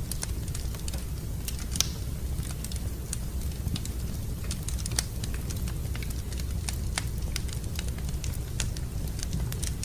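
Fire crackling in a fireplace: irregular sharp pops and snaps over a steady low rumble, with two louder pops about two seconds and five seconds in.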